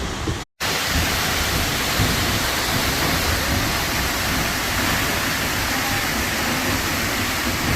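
Steady roar of a waterfall's rushing water. It cuts out completely for a split second about half a second in.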